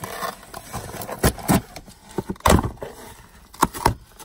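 A car key cutting and scraping through packing tape on a cardboard box: a few sharp rips and scrapes, about five in all, over light rustling of the box.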